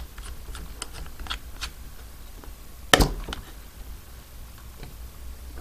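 Light clicks and ticks of a plastic propeller and aluminium spinner nut being screwed by hand onto a brushless motor's prop adapter, with one sharper click about three seconds in.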